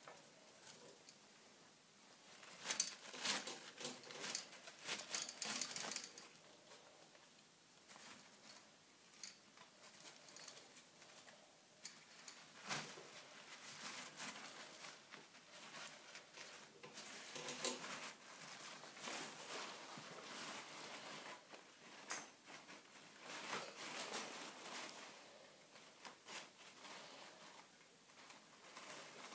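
A degu rustling and crinkling paper towels and shuffling through hay bedding as it gathers nesting material, in irregular bursts separated by quieter stretches.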